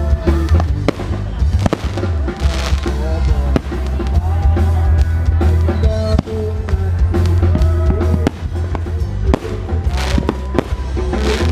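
Loud music with a heavy, steady bass line and a melody, with fireworks bursting and crackling over it a few times, most strongly about two and a half seconds in and near the end.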